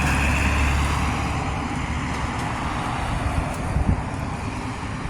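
Road traffic: a passing motor vehicle's engine rumble and tyre noise, loudest at the start and fading away.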